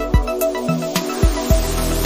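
Electronic background music with a steady beat; a deep bass layer comes in about halfway through.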